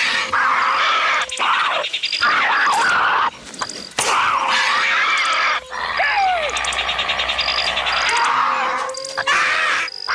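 Designed creature calls for a Tropeognathus, a pterosaur: a series of harsh, rasping calls with gliding pitch, broken by short pauses, with short high chirps repeating between them.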